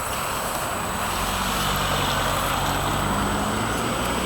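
Steady vehicle engine hum that comes in about a second in and holds an even pitch, over a constant roadside hiss of traffic.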